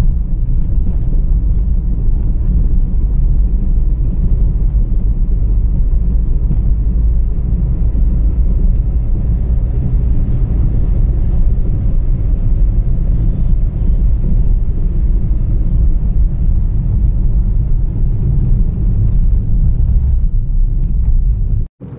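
Steady low rumble of a car driving, heard from inside the cabin: engine and road noise with no change in pace. It cuts off suddenly just before the end.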